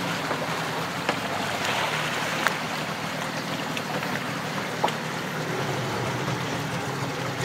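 Wooden river boat under way: its motor running steadily beneath a constant rush of water and wind, with a few faint knocks.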